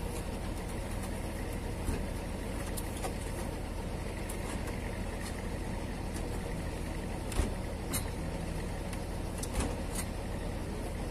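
Steady low engine rumble, as of a truck idling, with a few dull thumps of watermelons being set down in the truck bed, the loudest about seven seconds in.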